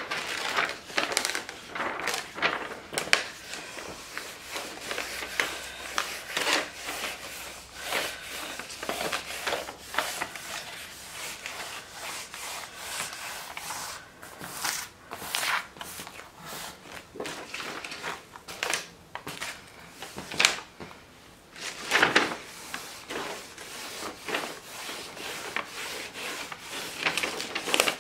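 Diamond painting canvas and its plastic protective film being handled and smoothed down by hand: irregular rustling, rubbing and crinkling, with a few louder crinkles along the way.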